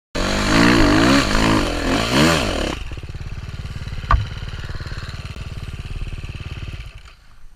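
Enduro motorcycle engine revved up and down a few times, then settling to a steady lower idle about three seconds in. A single sharp click sounds about four seconds in, and the engine sound drops away near the end.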